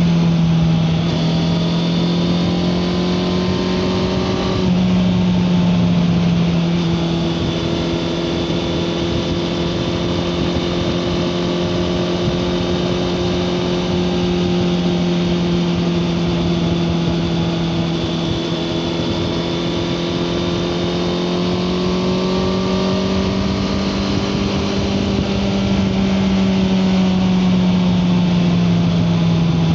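Honda CBR650R's inline-four engine running at steady cruising revs while riding, its pitch dipping slightly about a second in, rising again a few seconds later, then drifting gently. Heard from a recorder carried in the rider's backpack.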